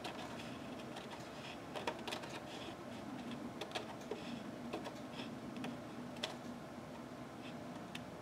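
Scattered light clicks and taps of paper and craft tools handled on a work table, irregular and faint.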